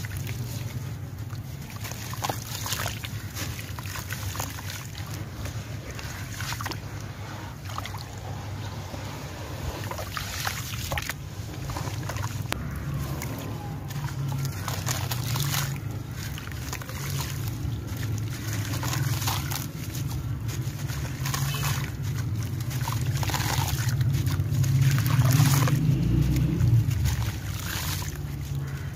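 Hands crumbling and rubbing wet sand-cement chunks over a basin of water: gritty crunching and scraping mixed with water sloshing and dripping, over a steady low rumble. The crunching is loudest a few seconds before the end.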